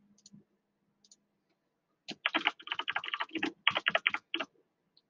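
Typing on a computer keyboard: a quick run of keystrokes lasting about two seconds, starting about two seconds in. A few faint clicks come before it.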